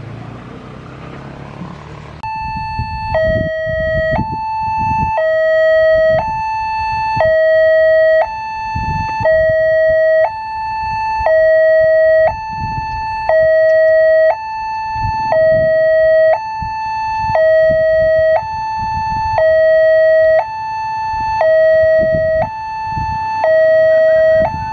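Electronic railway level-crossing warning alarm sounding a two-tone high-low signal, each tone held about a second and repeating steadily, starting about two seconds in. It warns that a train is approaching.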